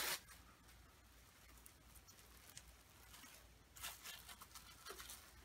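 Faint rustling and crinkling of plastic cling film being laid over dough and pressed down by hand, with a couple of louder crinkles near the end.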